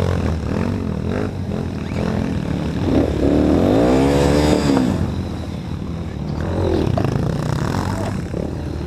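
Dirt bike engines running with a steady low note and revving in swells, the longest rev rising and falling about three to five seconds in, a shorter one near seven seconds.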